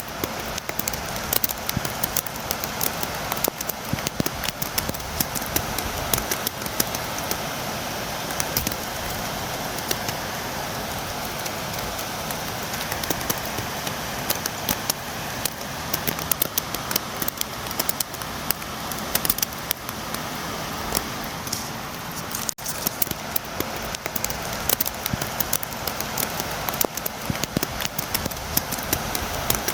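Rain falling and tapping at a window: a steady hiss with frequent sharp taps of drops striking close by.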